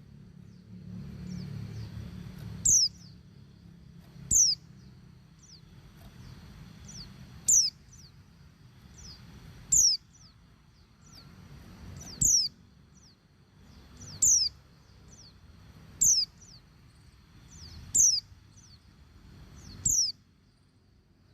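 Female white-eye (pleci) in breeding condition calling for a male. It gives a short, high note that slides sharply downward, repeated about every two seconds, with fainter notes in between, over a low steady hum.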